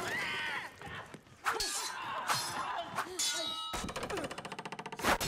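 Sword-fight sound effects: steel katana blades clanging and ringing against each other, mixed with men's yells and cries. Near the end comes a fast rattling flutter about a second long, then one sharp loud strike.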